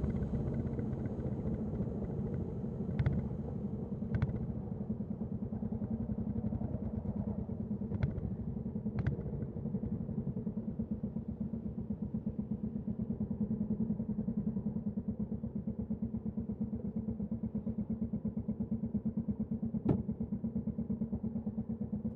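Royal Enfield Classic 350's single-cylinder engine and exhaust running steadily with an even, rhythmic beat, its speed neither rising nor falling. A few short sharp clicks sound over it.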